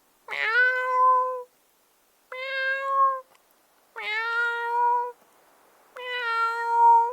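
A cat meowing four times, about every two seconds. Each meow is a drawn-out call of about a second at a steady pitch.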